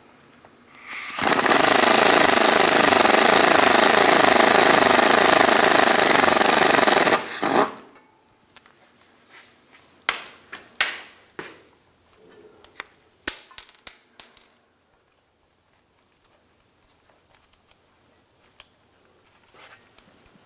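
Pneumatic impact wrench hammering on a T40 bolt at the rear drive shaft-to-differential flange, loosening it. It runs loud and continuous for about six seconds, then stops. A few seconds later come several sharp metallic clicks and clinks.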